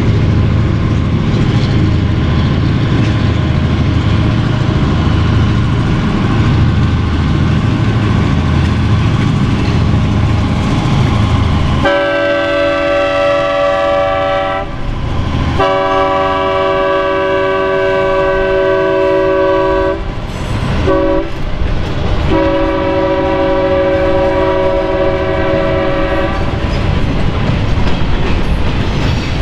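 Diesel locomotive running as it approaches, then its air horn sounds four blasts, long, long, short, long: the standard grade-crossing warning. Near the end the freight cars roll past with wheel clatter.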